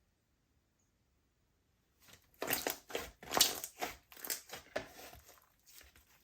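Slime being squished and kneaded by hand: a quick run of wet crackling squishes and pops that starts about two seconds in, is loudest around the middle and tails off near the end.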